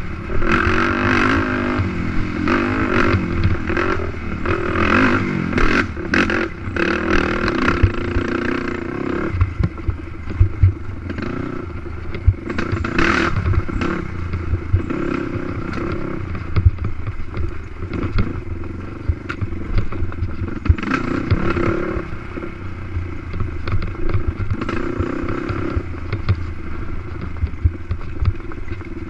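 Racing quad's engine revving up and down under hard riding, with frequent knocks and rattles as the machine bounces over rough dirt.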